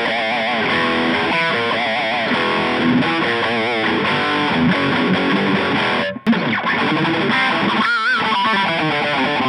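Electric guitar with distortion played through a Boss Katana Mini 7-watt practice amp: sustained lead notes with wide vibrato. The sound drops out briefly about six seconds in, then picks up again.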